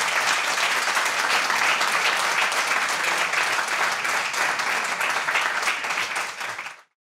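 Audience applauding steadily in a conference room, cut off abruptly near the end.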